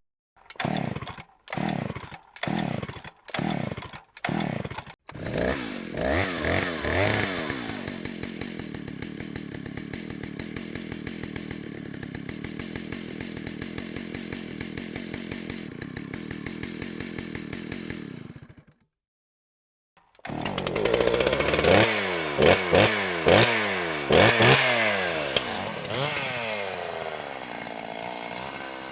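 Stihl two-stroke chainsaw being pull-started: several short pulls of the recoil starter cord before the engine catches and settles into a steady idle. After a brief silence it is revved again and again, the pitch rising and falling with each blip of the throttle.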